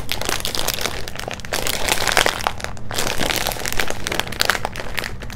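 Crinkly plastic potato-chip bag crackling as it is gripped and pulled hard with both hands, the sealed bag resisting being pulled open.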